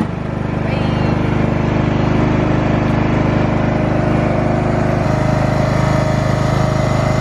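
Countax C500H ride-on lawn tractor's engine running steadily, just started, picking up slightly in the first second before holding at a steady speed.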